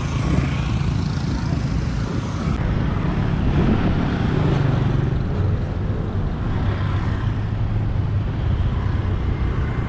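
Road traffic on a bridge: motorbike and car engines running amid a steady low rumble of tyre and wind noise, which shifts in character about two and a half seconds in.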